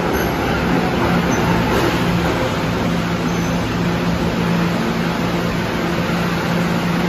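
A Kawasaki R211A subway train pulling into an underground station and slowing to a stop, with steady running noise and a constant low hum.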